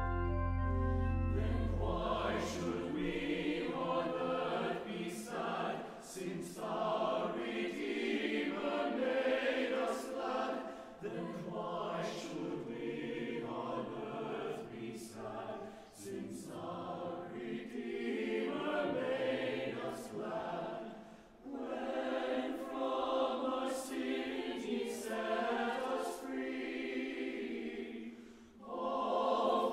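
Chamber choir singing a Christmas anthem in phrases, with short breaks between them. A held brass chord dies away during the first two seconds as the voices take over.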